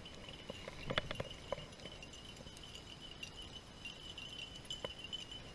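Faint outdoor ambience: a steady high-pitched insect trill, with a few soft ticks about a second in and again near the end.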